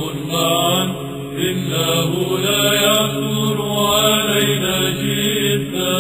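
Choir singing Byzantine chant in Arabic: a melody line moving over a steady held low drone note (the ison).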